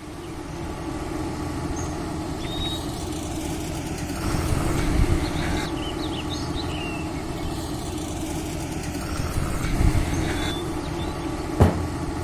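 A machine running steadily with a low hum, swelling louder twice, with a single sharp knock near the end. Birds chirp faintly now and then.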